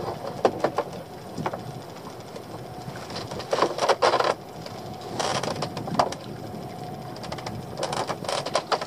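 Small outboard motor idling steadily, with a few knocks and several bursts of splashing as a lobster pot's line is pulled up by hand over the side of the boat.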